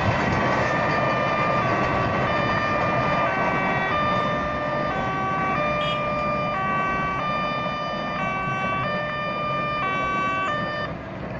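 Railway level-crossing warning alarm sounding a two-tone signal that switches pitch about twice a second, over the steady rumble of a passing freight train. The alarm stops near the end.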